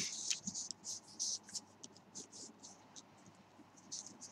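A pen scratching on paper in short, faint, irregular strokes while drawing a sketch, with a single sharp tick right at the start.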